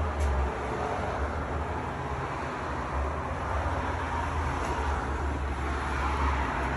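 Steady low rumble under an even noisy hiss, with no distinct events.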